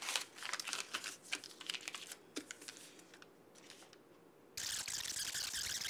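Small plastic parts and a paper instruction sheet being handled on a tabletop, heard as light scattered clicks and rustles. About four and a half seconds in, a much louder, continuous crinkling rustle starts suddenly.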